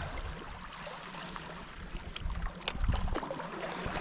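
Sea water washing, with wind rumbling on the microphone and a few faint clicks.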